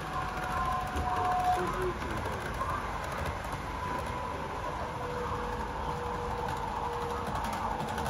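HO-gauge model trains running along the layout track: a steady running noise of wheels on rail, with a thin motor whine that shifts in pitch as trains pass.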